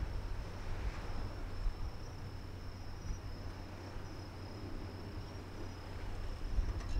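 Crickets chirring in a steady high-pitched trill, over a low, steady rumble.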